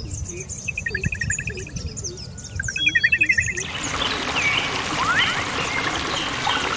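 Songbirds chirping and singing in quick repeated trills. A little past halfway an even hiss comes up under the birds, and the calls turn to scattered rising whistles.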